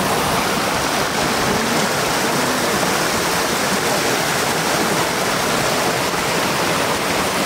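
Shallow floodwater running steadily over the edge of a road, a continuous rushing.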